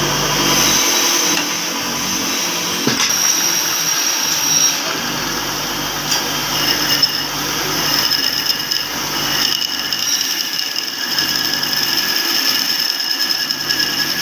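A power tool running steadily in a workshop, with a high whine over a noisy hum.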